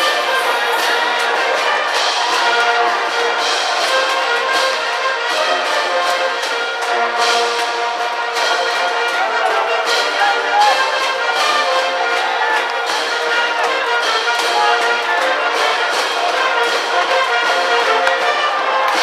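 A high school brass band plays a cheering tune in the stands, with trumpets and trombones over regular drum hits.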